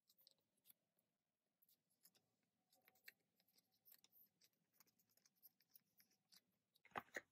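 Near silence with faint handling noise: light rustles and small clicks of photocards and plastic binder sleeves being moved, with a short run of louder clicks near the end.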